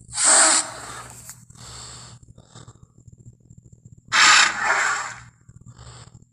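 Triceratops dinosaur sound effect: two loud, rough, breathy calls, the first just after the start and short, the second about four seconds in and about a second long, with fainter shorter calls between them over a steady low hum.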